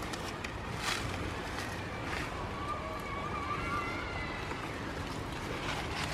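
Goats browsing on a pile of cut leafy branches: leaves rustling and twigs crackling as they pull and chew, a few sharper crackles about one and two seconds in, over a steady background hiss, with a faint wavering tone in the middle.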